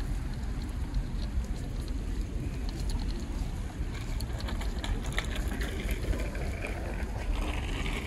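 Outdoor ambience on a seaside promenade: a steady low rumble, like wind on the microphone and distant traffic. Faint voices of passers-by come in during the second half.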